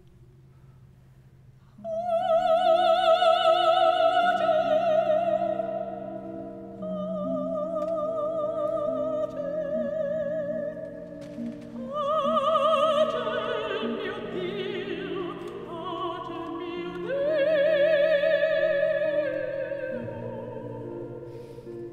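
Operatic soprano singing with a wide vibrato over soft, sustained orchestral accompaniment. About two seconds in she enters on a long, loud held high note, then sings several more long phrases.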